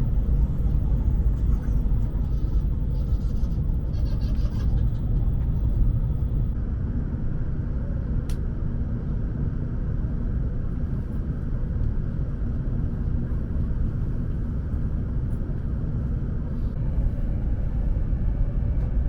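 Steady low rumble of an Asama Shinkansen train running at speed, an even wash of running noise without breaks.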